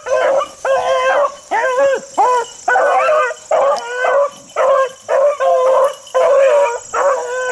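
Beagles baying in quick, overlapping calls, about two a second, the running cry of hounds on a scent trail.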